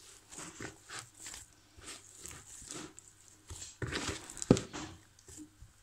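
Hand kneading wheat-flour dough in a bowl: irregular squishing and patting strokes a few tenths of a second apart, with one louder thump about four and a half seconds in.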